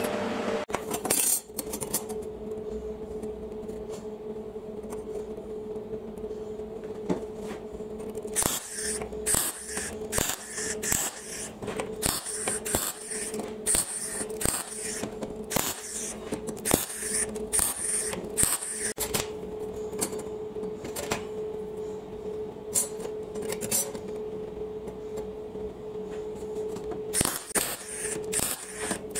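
MIG welder laying short tack welds on steel bicycle sprockets and chain: runs of brief crackling bursts in quick succession, over a steady hum. The bursts are busiest through the middle of the stretch and again near the end.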